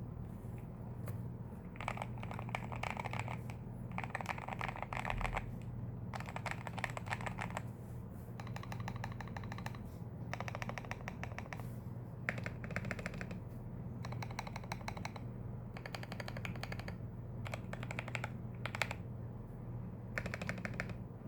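Typing on a CIY Tester68 mechanical keyboard with hand-lubed Gateron Yellow linear switches, tape-modded and foam-dampened, with XDA keycaps. The keystrokes come in quick bursts of a second or two with short pauses between them.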